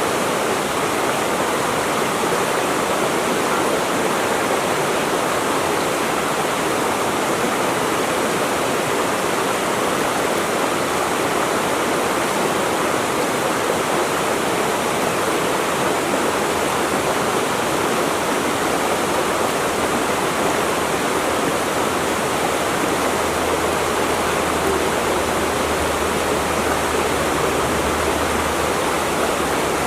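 Running water, a stream or small waterfall, flowing in a steady, unbroken rush.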